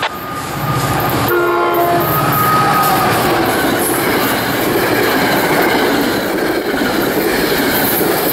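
New Jersey Transit push-pull commuter train with a PL42AC diesel locomotive passing at speed. Its horn sounds one short blast about a second in, then the train rumbles past with its wheels on the rails.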